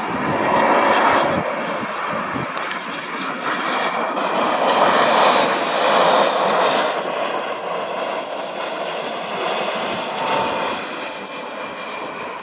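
Jet engines of an American Airlines Boeing 787 Dreamliner passing low on final approach to land: a steady rushing jet noise, loudest about five to six seconds in, that eases off toward the end as the airliner moves away toward the runway.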